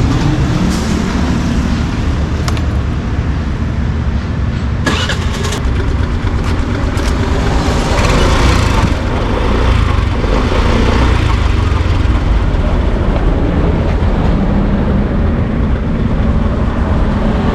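Suzuki Burgman 125 scooter's single-cylinder four-stroke engine running steadily, turning the newly fitted 120/70-10 rear tyre. A short clatter of clicks about five seconds in.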